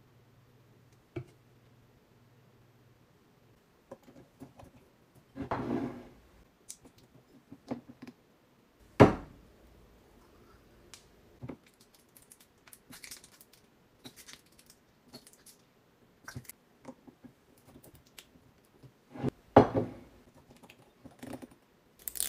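Glass syrup bottles, caps and plastic squeeze bottles being handled on a counter: scattered clicks and taps, a sharp knock about nine seconds in, and a few short rustling, scraping bursts.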